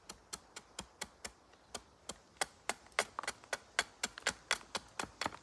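Straight Tracker knife chopping into a sycamore hearth board: a quick run of short, sharp wooden knocks, about four a second, growing louder after about two seconds. These are small chop cuts squaring off the bow drill hearth.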